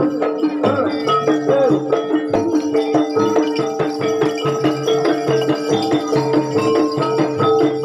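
Kuda lumping gamelan music: fast struck metal percussion and drums over two steady held tones.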